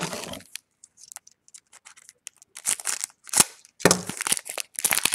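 Foil trading-card pack wrapper crinkling and tearing as a pack is opened: a run of sharp rustling bursts from about halfway in, with one sharp snap among them.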